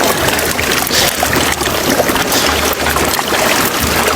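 Water splashing and trickling, with many small knocks and splashes over a low rumble.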